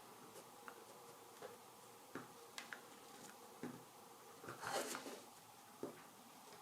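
Faint short scratches and clicks of a Mora 106 carving knife tip scoring fine lines into a wild cherry teaspoon handle, with one longer scrape about two-thirds of the way through.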